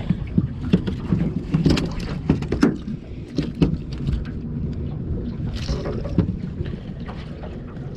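Irregular knocks and clatter from a freshly caught flathead being handled and unhooked in a small boat, over a steady low rumble.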